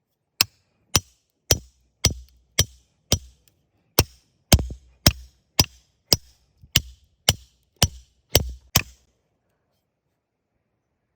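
A tool striking wood in a steady working rhythm: about sixteen sharp blows, roughly two a second, with one short pause partway through, stopping near the end.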